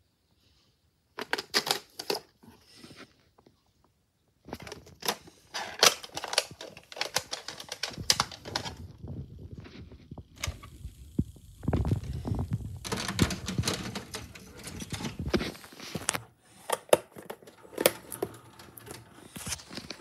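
Plastic VHS cassette and its clamshell case being handled: repeated sharp clicks, clacks and rattles, with a denser stretch of rubbing and low rumbling about halfway through.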